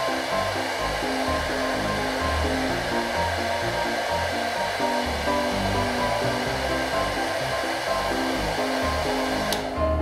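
Handheld hair dryer blowing steadily, over background music; the airflow noise cuts off abruptly near the end.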